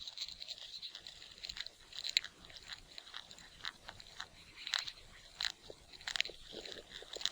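An animal chewing or cracking food: irregular crisp crunching clicks, a few a second.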